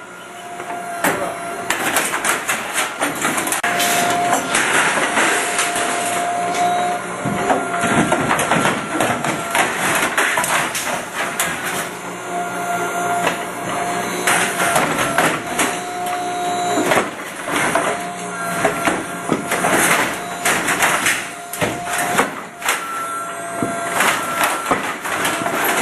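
Demolition tool on an electric mini excavator hammering in rapid, irregular knocks. A steady whine from the machine comes and goes in stretches of a few seconds.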